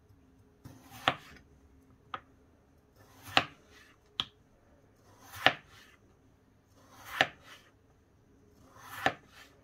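A kitchen knife slicing a raw potato into thin slices on a plastic cutting board. Five slow cuts come about two seconds apart, each building to a sharp tap of the blade on the board.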